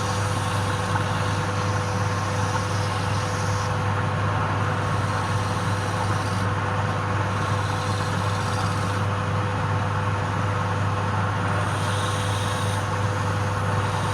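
Wood lathe running steadily: a constant low hum with a steady tone over it, and a higher hiss that grows and fades every few seconds.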